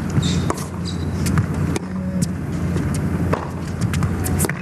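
Tennis rally on a hard court: a string of sharp knocks from racket strikes and ball bounces, with a couple of short high shoe squeaks in the first second, over a steady low hum.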